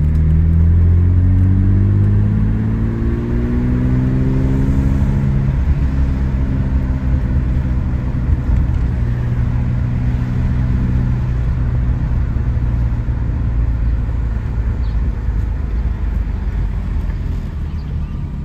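BMW Bavaria straight-six running under load, heard from inside the cabin while driving: the engine note rises as the car accelerates for about five seconds, drops, holds steady, then eases into a lower cruising rumble with road noise.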